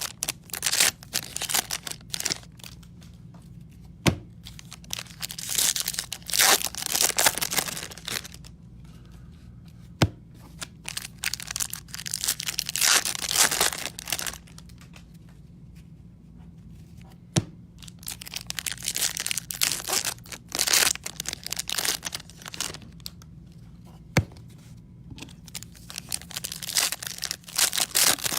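Foil wrappers of trading-card packs being torn open and crinkled, in repeated bursts of ripping and rustling. Sharp single clicks come about every six or seven seconds, over a steady low hum.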